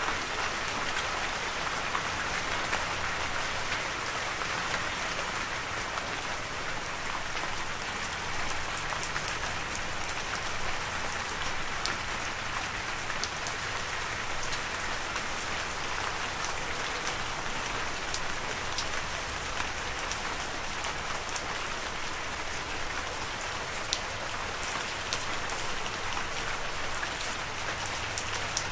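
Steady rain falling, an even hiss with many small, sharp drop ticks scattered through it.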